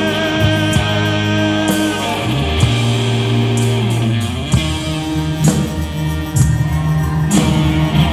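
Live rock band playing: electric guitars, bass guitar and drum kit, with a singer holding a long wavering note over the first couple of seconds.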